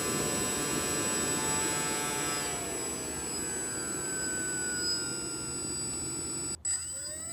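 Homemade jet engine's whine falling in pitch as it slows down. After a brief cutout near the end, the whine rises again as it speeds back up.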